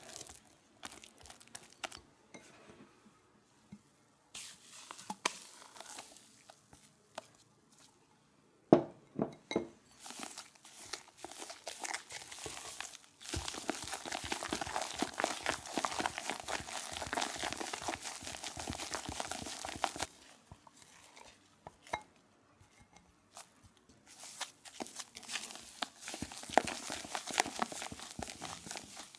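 A spatula stirring and scraping thick mascarpone cream around a glass bowl, in stretches with short pauses, the longest run in the middle. There is one sharp knock against the bowl about nine seconds in.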